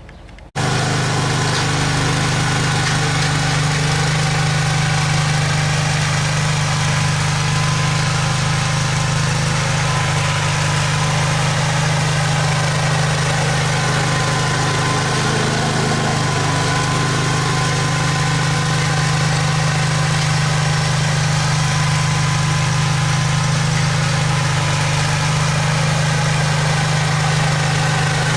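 Engine of a snow-clearing machine running steadily at a constant speed.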